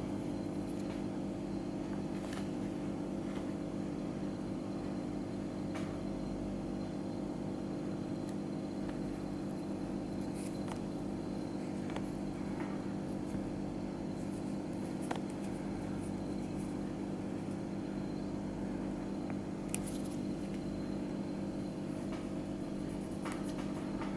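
A steady low background hum with a few faint, sharp clicks and ticks scattered through it. The clicks come from a precision screwdriver tip working a tiny screw into the bottom edge of an iPhone 8's metal frame beside the charging port.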